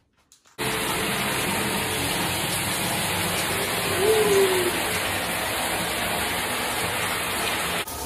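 Shower running: a steady spray of water hissing down, starting abruptly about half a second in.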